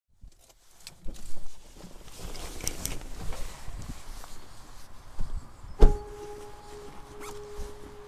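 Someone getting out of a Honda car: rustling and a couple of sharp clicks, then the car door shut with one loud thunk a little before six seconds in. A steady hum starts right after the slam and keeps going.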